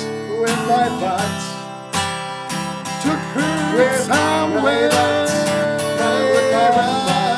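Acoustic guitar strummed while two men sing along in long, wavering held notes, in a folk-country style.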